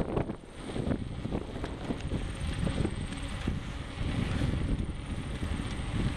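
Wind buffeting the camera microphone: an uneven, gusty rumble.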